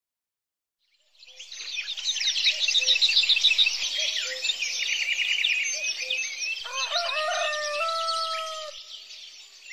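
Many small songbirds chirping and twittering, fading in about a second in. Partway through, a rooster crows once, ending on a long held note.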